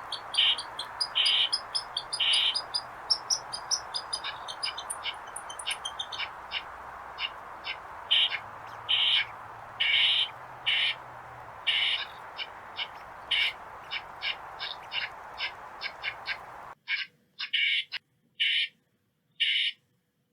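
Eastern gray squirrel alarm calls: a fast run of short, high chirps, several a second, with longer calls mixed in about every second. A steady background hiss cuts off suddenly near the end, leaving the calls alone.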